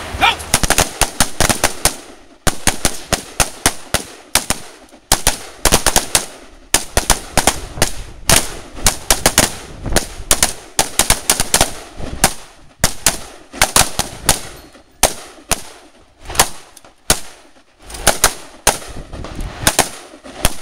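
Rifle fire from a line of shooters firing AR-15 and AK-pattern rifles at the same time: many sharp shots, overlapping and irregular, with a few brief lulls.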